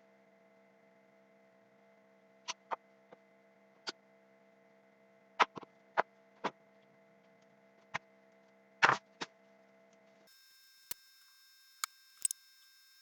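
Irregular sharp clicks and knocks of tools and parts being handled during hand work on an engine, about a dozen in all, the loudest a short cluster about nine seconds in, over a steady low hum.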